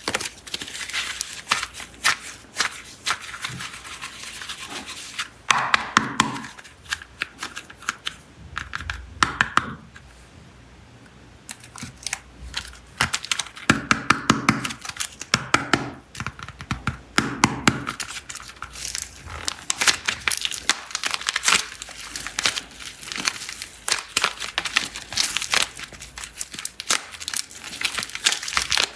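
Plastic packaging on clay packs crinkling and tearing as it is unwrapped, dense and crackly, with a few short squeaks. There is a brief quieter pause about a third of the way in.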